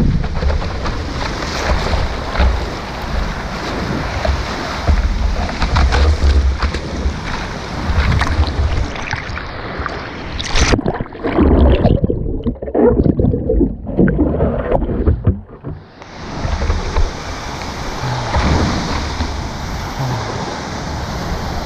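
Ocean surf washing on a beach, with wind buffeting the microphone in a heavy low rumble. About halfway through the surf hiss falls away for a few seconds and the sound turns muffled and gusty before the wash returns.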